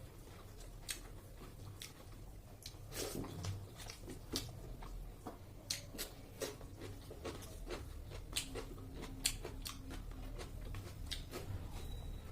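Close-up eating sounds: chewing and biting into food, with irregular sharp clicks and small crunches, over a steady low hum.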